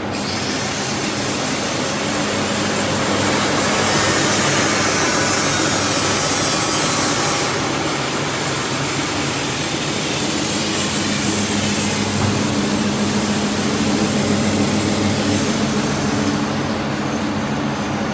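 FPL850-4 four-colour flexographic paper-cup printing press running at speed, a steady machine noise with a low hum as the paper web feeds through the rollers. A louder, higher hiss comes in a few seconds in and drops away about halfway through.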